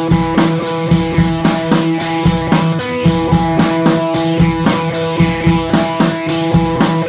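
Background music with a steady drum beat over sustained pitched notes.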